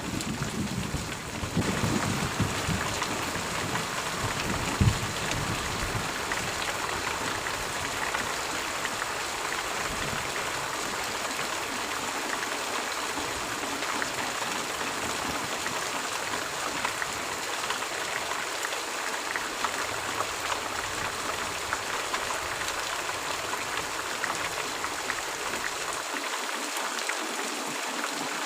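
Steady rain falling, a dense even patter of drops on surfaces. A low rumble dies away over the first few seconds.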